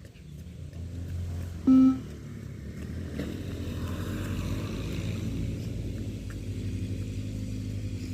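A single short electronic beep from a beep-test recording about two seconds in, marking the end of a shuttle, with the next beep starting at the very end. Underneath, a motor vehicle engine runs steadily, growing louder after about three seconds.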